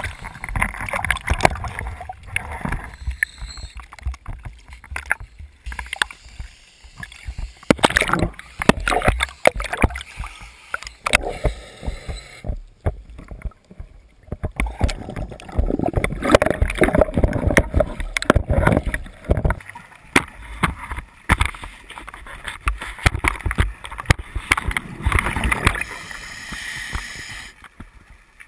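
A splash of water at the start, then scuba breathing heard underwater: long bubbling, gurgling bursts of exhaled air every several seconds, with the regulator's hissing inhale between them.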